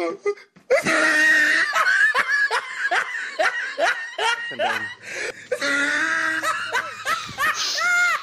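Laughter: a quick run of short, pitched "ha" sounds with a brief lull about five seconds in.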